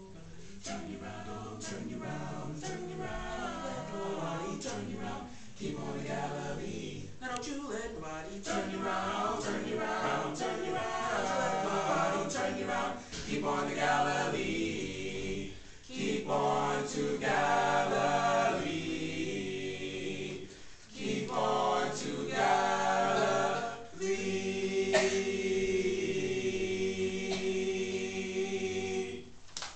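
Male a cappella vocal group singing a Black spiritual in close harmony, ending on a long held chord.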